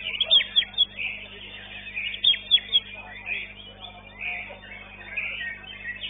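White-rumped shama singing a fast, varied run of chirps and whistles. Several sharp, loud downward-sweeping notes come near the start and again about two seconds in.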